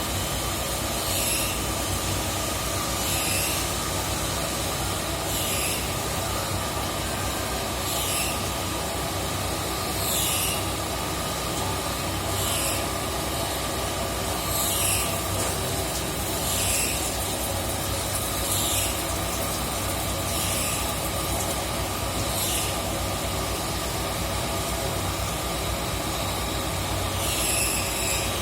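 CNC lathe running with a steady machine hum, and a brief high hiss that recurs about every two seconds, with a longer gap near the end.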